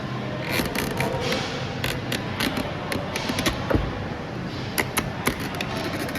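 Irregular sharp mechanical clicks and knocks, a dozen or more at uneven spacing, over a steady low hum.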